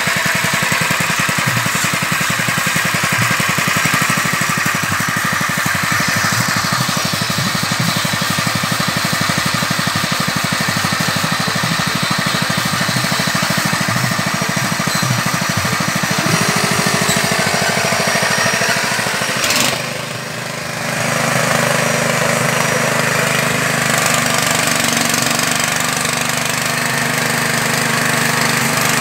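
Small engine of a fish-feed pellet machine running steadily with a rapid rattling beat. It dips briefly about two-thirds of the way in, then runs on smoother.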